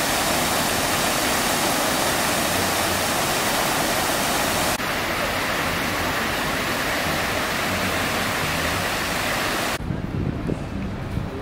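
Jet fountains sending water up and splashing it back into a shallow pool: a loud, steady hiss of falling spray. Near the end it cuts off, giving way to quieter outdoor background sound.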